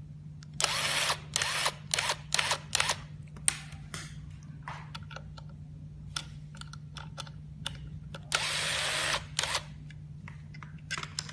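Small electric screwdriver backing out the cover screws of a mobile DVR, run in short bursts of under a second each, then once for about a second near the end.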